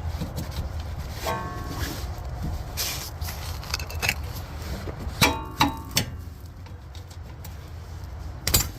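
Ford Escape's rear suspension giving two short squeaks, about a second in and again about five seconds in, over a steady low vehicle rumble with a few sharp clicks. The squeaking is the sign of worn rear trailing arm bushings.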